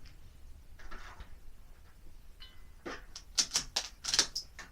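Bolt of a bolt-action .22LR rimfire rifle being cycled between shots: a quick series of sharp metallic clicks in the second half.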